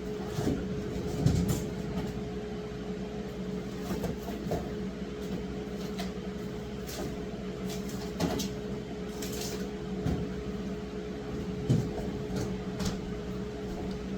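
A steady motor hum, with scattered light knocks and rustles of things being handled.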